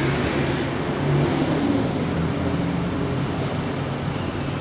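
Steady low machine hum under an even rushing noise, with no clear pauses or sudden knocks.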